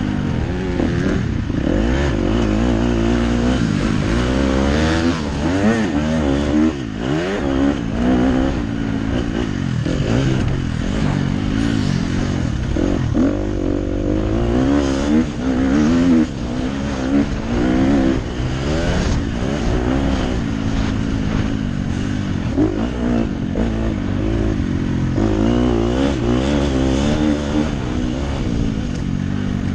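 KTM SX 250F's four-stroke single-cylinder engine, heard from on board, revving up and dropping back over and over as the rider accelerates, shifts and rolls off around a motocross track.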